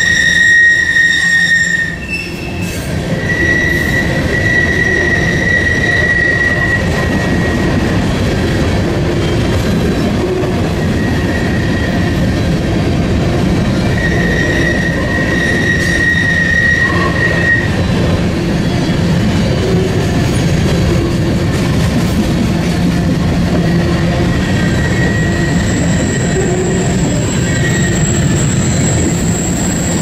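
Freight train of covered hopper cars rolling past close by: a steady, loud rumble of wheels on rail, with a high-pitched wheel squeal that comes and goes several times.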